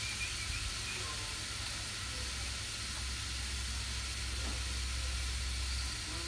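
Sliced vegetables sizzling steadily in hot oil in a wok, with spices just sprinkled in.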